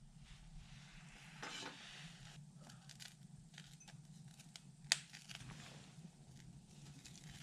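Faint handling noises as a struggling campfire of sticks and fire lighters is tended, with one sharp click or snap about five seconds in.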